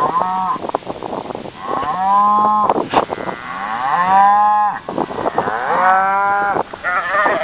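Cattle bawling: a run of about five loud, drawn-out moos, roughly one every two seconds.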